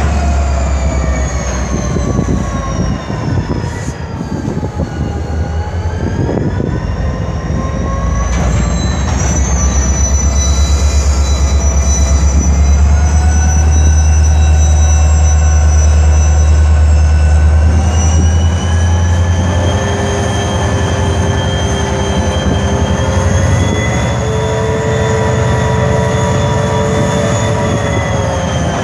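Norfolk Southern diesel-electric locomotives running and moving slowly, a loud steady deep rumble with the engine note dipping about five seconds in and then climbing back. A thin high squeal of wheels on the rails sounds for several seconds near the middle.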